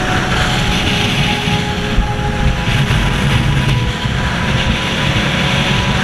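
Wind rushing over the microphone of a Suzuki sport bike at highway speed. The bike's engine runs underneath at a steady pitch, with no revving or shifting.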